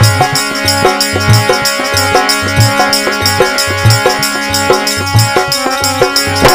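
Instrumental music of a Rajasthani devotional bhajan: steady held chords over a regular drum beat, with fast jingling percussion throughout.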